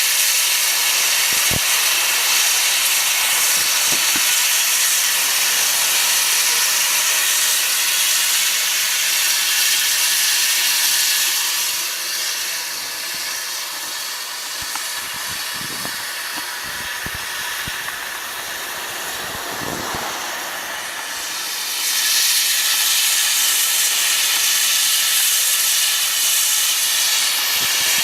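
Steam hissing steadily from a standing Welsh Highland Railway narrow-gauge steam locomotive. The hiss eases off about twelve seconds in and comes back at full strength near the end.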